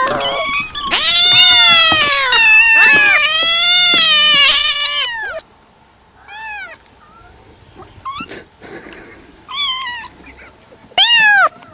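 Cats meowing: long, drawn-out meows that overlap for the first five seconds, then a few short, quieter meows, and one loud short meow near the end.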